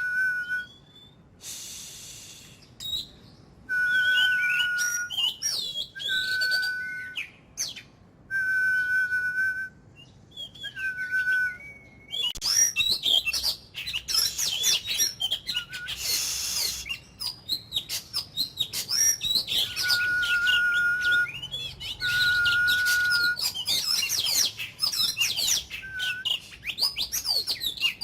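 Oriental magpie-robin singing: long steady whistled notes, each held about a second, alternate with quick varied gliding phrases, and about halfway through the song becomes dense and continuous. Twice there is a brief hissing noise.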